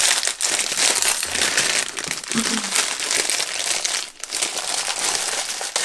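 A shiny chocolate wrapper being crinkled and torn open by hand as a mini Kit Kat Santa is unwrapped. The crackling is continuous, with a short lull about four seconds in.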